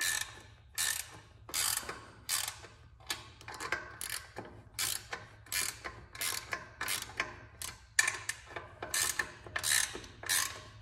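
Ratcheting wrench clicking over and over, about two strokes a second, as it tightens the 12 mm chain-tensioner bolts that pull a go-kart's engine back to take up slack in the drive chain.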